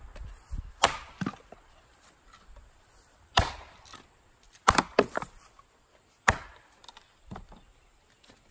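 A small Wetterlings axe splitting short pieces of hardwood on a chopping block: about half a dozen sharp chops at irregular intervals, the loudest a little over three seconds in, with smaller knocks between them.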